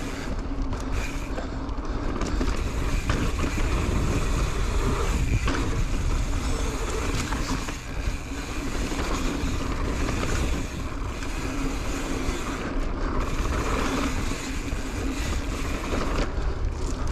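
Mountain bike riding a dirt singletrack descent at speed: a steady rush of tyre rumble over the trail mixed with wind on the microphone.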